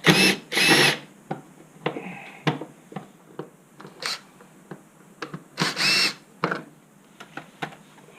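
Cordless drill-driver backing out the screws that hold a motorcycle air filter box cover. It gives two short bursts at the start and another about six seconds in, with small clicks and knocks from the parts being handled in between.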